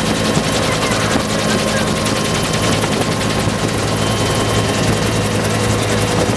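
Bell UH-1 Huey helicopter in flight, heard from inside its open-door cabin: the loud, steady run of the turbine and rotor with a fast, even blade beat over a rush of wind.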